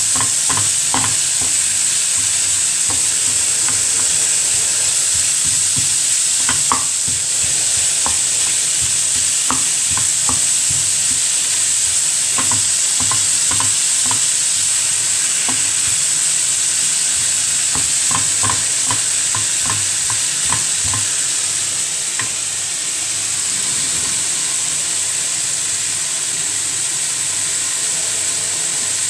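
Minced beef and onions frying in a shallow pan, sizzling steadily while a wooden spatula stirs the mince, scraping and tapping against the pan. The scraping stops about three-quarters of the way through and the sizzle carries on.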